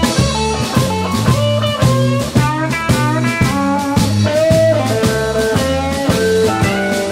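A live blues band playing a shuffle: an electric guitar solos in single notes with string bends over a bass guitar and a drum kit locked in a swinging shuffle rhythm.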